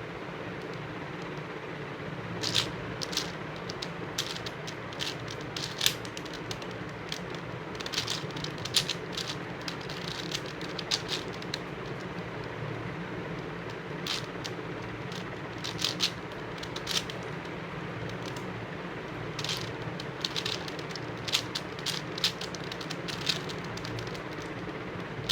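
Plastic 5x5 Rubik's cube being turned by hand: irregular clicks, often several in quick succession with pauses between, over a steady background hum.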